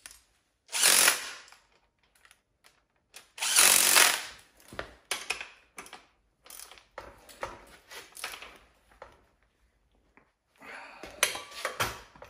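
Steel fork tubes being worked up into motorcycle triple clamps: two loud metal scrapes about a second long, then scattered clicks and knocks, and near the end a ratchet wrench clicking as a clamp bolt is worked.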